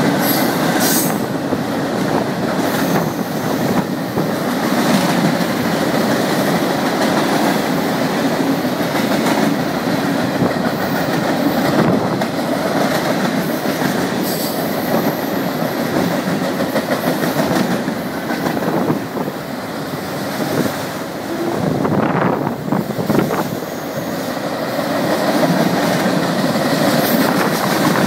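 A CN freight train's cars rolling past steadily, the wheels clicking over rail joints. Thin, high wheel squeals come in briefly about halfway through and again later.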